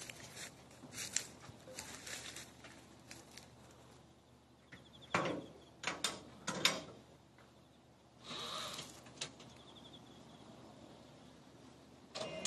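Scattered knocks and metal clanks as a person climbs into and moves about the steel work basket of a battery-powered orchard platform cart, with the loudest thumps about five to seven seconds in. Just before the end, the cart's electric lift motor starts running steadily as the basket begins to rise.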